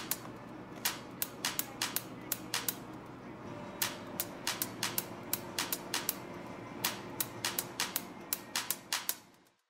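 A quick, irregular run of sharp clicks, about three or four a second, over a faint steady hum. It fades out near the end.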